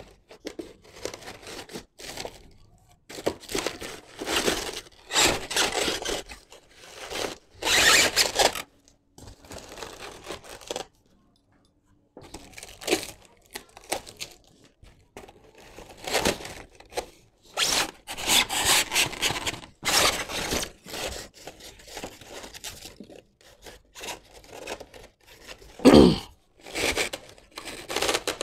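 Cardboard box and foam packing being torn, scraped and pulled apart by hand in irregular crunching bursts, with a pause of a few seconds partway through. Near the end comes a single loud thump.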